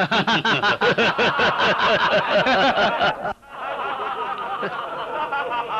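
A person laughing heartily in rapid, evenly spaced "ha-ha-ha" bursts for about three seconds. After a brief break, a quieter stretch of laughter follows.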